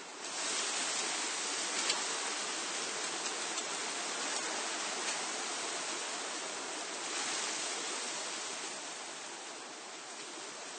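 Wind blowing through tree foliage, leaves rustling in a steady hiss. A gust swells up just after the start and another around seven seconds in, then it eases off near the end.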